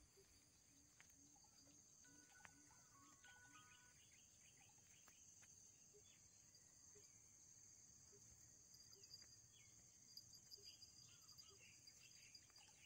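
Faint, steady, high-pitched insect chorus of crickets, with scattered faint short chirps over it.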